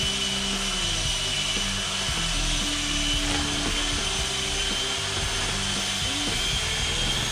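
Electric drill with a paddle mixer running steadily, churning drywall texture mud in a five-gallon bucket, with a steady high whine over the motor noise.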